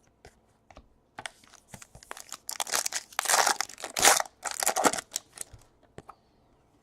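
Wrapper of a trading-card pack being torn open and crinkled, a run of rustling and tearing that is loudest in the middle and trails off into a few small clicks near the end.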